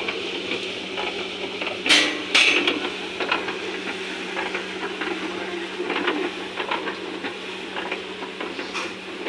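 Puffed rice (muri) tumbling and rattling inside a rotating drum roaster, with a steady motor hum and many small clicks of grain against the drum. Two louder knocks come about two seconds in.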